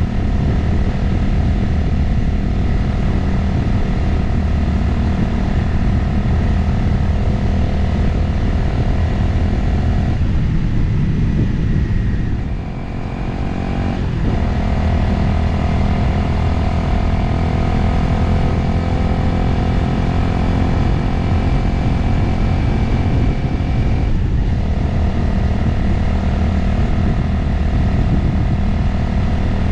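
Motorcycle engine running at road speed, with wind noise on the microphone. A little under halfway through the engine note dips briefly and then settles at a new steady pitch, and it steps again later on.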